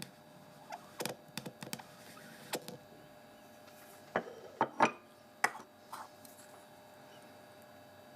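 Sparse small clicks and taps of a watchmaker's hand tools working a tiny watch part as its surface is smoothed, the loudest few a little past the middle, over a faint steady hiss.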